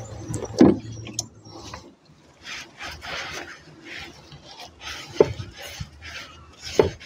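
A cloth scrubbing and wiping a brake drum in repeated rubbing strokes, with three sharp knocks as the drum is handled.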